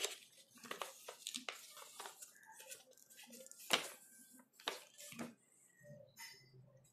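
A folded paper instruction leaflet being opened out and handled: a string of irregular paper crackles and rustles, with two sharper crackles near the middle.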